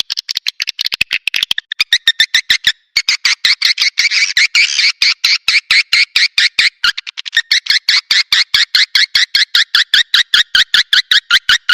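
Swiftlet lure recording: rapid, chattering chirps of swiftlets, about seven a second, each starting with a sharp click, broken by a brief pause about three seconds in.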